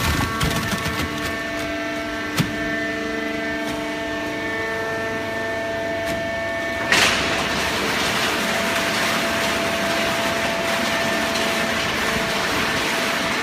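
Horizontal hydraulic baling press for waste cardboard running with a steady machine whine. There is a sharp click about two seconds in, and about seven seconds in a sudden, louder rushing noise sets in and holds steady.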